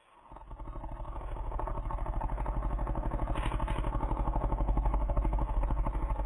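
Dog snoring: one long, loud, rapidly rattling snore that builds over the first second or so, holds steady, and stops abruptly near the end.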